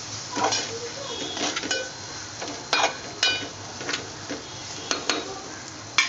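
Metal spoon stirring onions and garlic paste frying in a metal pot, scraping and knocking against the pot's sides with sharp ringing clinks about once a second, the loudest near three seconds in and at the end.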